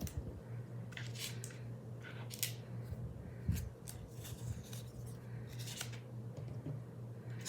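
Small handling noises, short crisp rustles and clicks like plastic or paper being moved or snipped, coming a few at a time, over the steady low hum of a fan.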